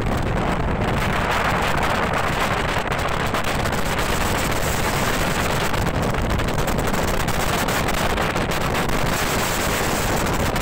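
Strong wind buffeting the microphone on the deck of a boat under way in rough sea, with water rushing against the hull; a steady, dense noise.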